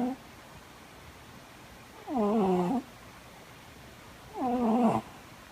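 Domestic cat snoring loudly in its sleep: two pitched snores, each under a second long and falling in pitch, about two seconds apart, with the tail of another at the very start.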